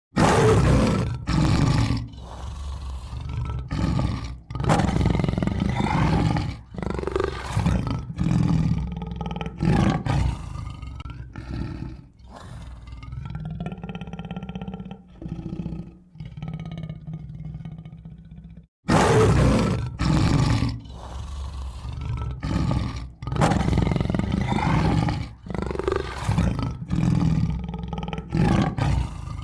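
Tiger roaring and growling over and over, a series of loud, rough roars of a second or two each with short breaks between them. The sound cuts out for an instant about 19 seconds in and the roaring starts again.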